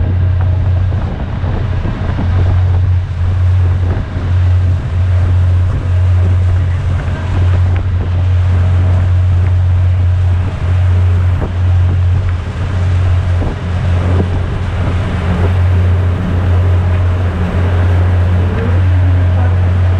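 Boat under way: wind rumbling on the microphone and the rush of the wake along the hull, over a low drone that dips briefly every second or two.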